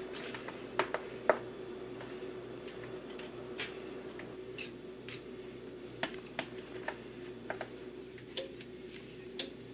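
Light, scattered clicks and taps of a plastic serving spoon scooping shrimp and vegetables from a mixing bowl and setting them onto foil, about a dozen over the stretch, over a steady low hum.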